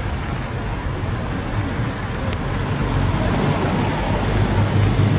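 A police car drives past close by, followed by police motorcycles approaching. Their engine hum grows steadily louder toward the end.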